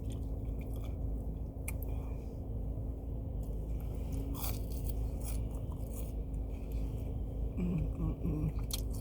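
Close-up chewing of breaded, fried chicken nuggets, with a few crisp crunches and mouth clicks over a steady low hum.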